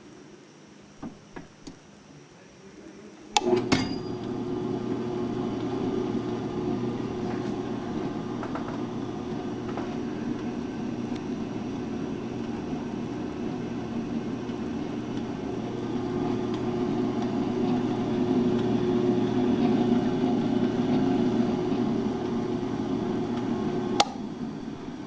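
Hobart A200 20-quart commercial mixer switched on with a sharp click a few seconds in, its motor and gearbox running steadily with a low hum, then switched off with another click near the end.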